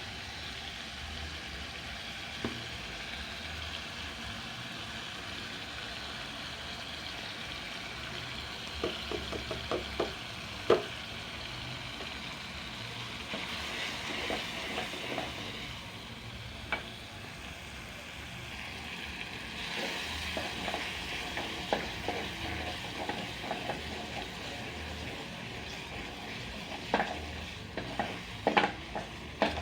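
Spices frying in a pan of cooked-down tomato paste, a steady sizzle. A spoon knocks and scrapes against the pan in short bursts about nine to eleven seconds in and again near the end, as the mixture is stirred.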